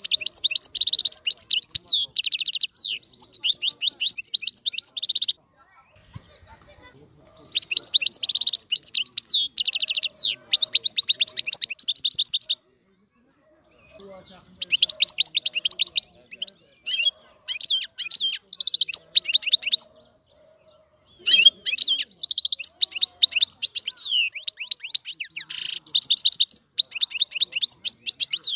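European goldfinch singing: rapid twittering song with quick trills and buzzy notes, delivered in four long bouts with short pauses between them.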